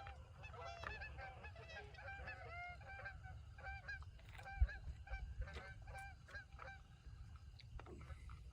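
A flock of geese honking, many overlapping calls that thin out near the end, over a low rumble. A single dull thump about halfway through is the loudest moment.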